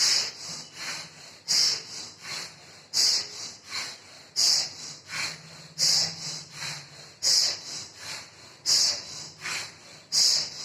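Forceful rhythmic breathing through the nose in bhastrika pranayama, one nostril at a time: a sharp, loud breath about every second and a half, with a softer breath between each pair.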